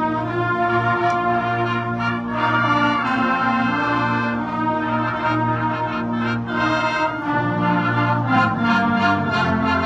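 High school marching band's brass playing held chords that change every second or two.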